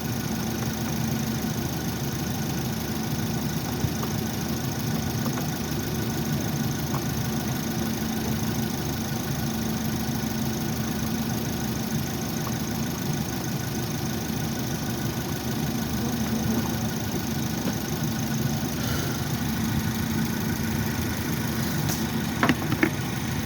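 Car engine idling steadily, with a few light clicks near the end.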